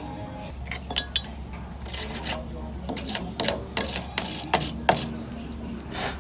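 Ratchet wrench clicking in short irregular runs, with metal clinks, as the nut on a jeep's tie rod end ball joint is worked.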